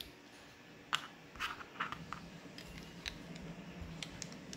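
Small plastic clicks and taps as 3D-printed Lego-compatible pieces are handled and pressed onto a plastic base plate: a few short, sharp clicks, the first about a second in and the rest scattered after.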